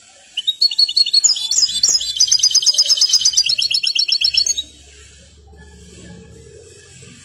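European goldfinch singing a tutored song phrase: about four seconds of loud twittering notes that run into a fast, even trill of repeated notes, then stop short.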